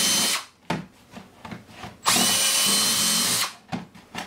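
Milwaukee cordless drill with a 1/4-inch bit boring out notches in the side of a thin plastic basket, running in short steady bursts. One burst ends about half a second in, and another runs for about a second and a half from about two seconds in, with small clicks and knocks between.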